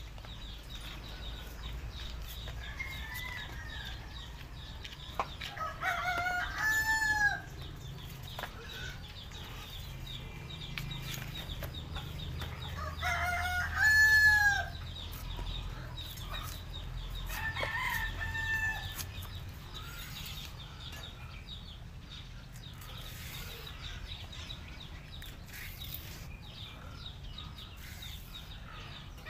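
Roosters crowing several times, the loudest crows about six and thirteen seconds in, with fainter crows between. A few sharp clicks.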